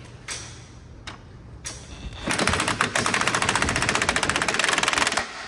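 Impact wrench hammering in a rapid, even rattle for about three seconds, starting a little after two seconds in and stopping abruptly. A few faint clicks and wind noise come before it.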